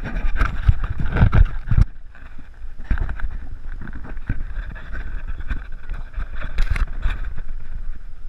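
Wind rumbling on a GoPro's microphone, with rustling and knocks as the camera is moved about.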